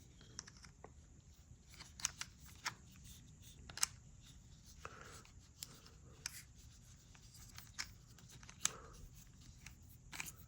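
Faint handling of a small plastic mini tripod and camera: scattered light clicks and taps as the parts are fitted together.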